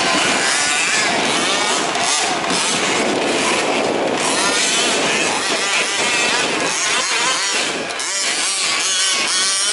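Several 1/5-scale two-stroke petrol RC truck engines buzzing and revving together, their overlapping pitches wavering up and down.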